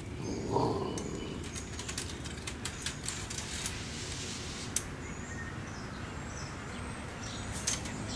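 Light clicks and rustles from a raccoon shifting about in a wire-mesh live trap on dry leaves, with a brief low sound about half a second in. Birds chirp faintly in the background.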